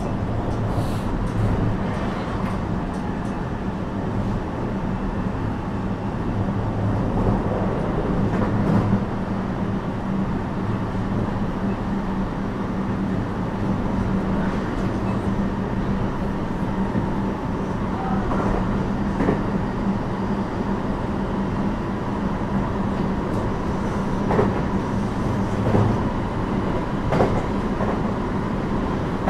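Running noise inside a JR West 321 series electric train car (Toshiba IGBT inverter drive): an even rumble of wheels on rail with a steady low hum that neither rises nor falls, and a few scattered sharp clicks.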